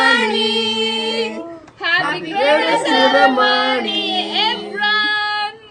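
Singing, with a child's voice to the fore, in two phrases of long held notes with a short break about a second and a half in.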